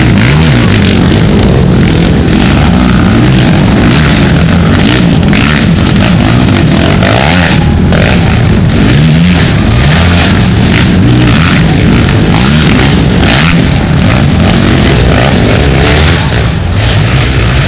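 Racing ATV engines revving hard, pitch rising and falling over and over as the quads accelerate and shift. The sound is very loud and close throughout, easing a little near the end.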